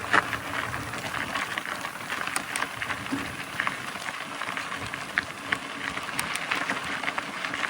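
Mountain bike tyres rolling over a dirt trail: a steady crunching hiss with many small clicks and rattles.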